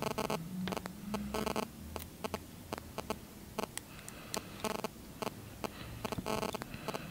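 Small irregular clicks and taps from fingers and fingernails handling iPhone 6 home button parts and the screen assembly, as the parts are worked loose.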